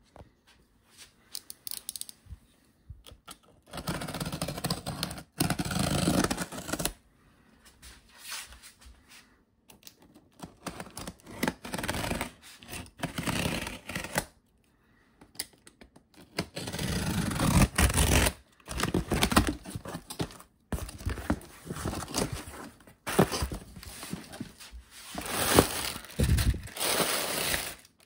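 Packing tape being torn and peeled off a cardboard box, with the cardboard scraping, in irregular bursts of rustling and ripping. Near the end, plastic air-cushion packing crinkles as it is handled.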